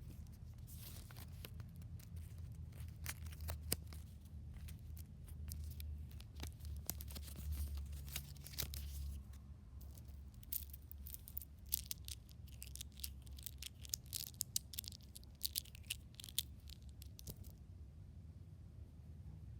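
Crinkling and crackling from a homemade fidget toy being squeezed and pressed by hand: a string of small sharp crackles that thickens into a dense run late on, then stops.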